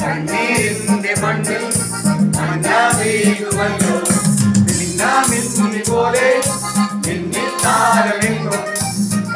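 A mixed group of men and women singing a Christmas carol together in unison, over an electronic keyboard accompaniment with a regular bass line and a steady rattling beat.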